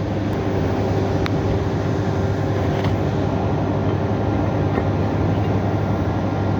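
Mitsubishi Fuso 4P10 diesel engine running at a steady idle, with a couple of faint metallic ticks from tools a little after a second in and near the middle. The engine has a leaking EGR pipe.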